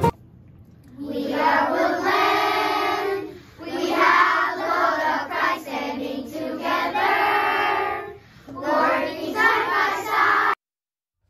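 A class of young children singing together in unison, in four phrases; the singing cuts off abruptly near the end.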